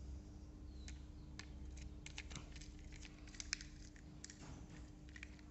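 Small plastic clicks and taps as toy truck parts are handled and pressed together: scattered clicks, the sharpest about three and a half seconds in, over a faint steady hum.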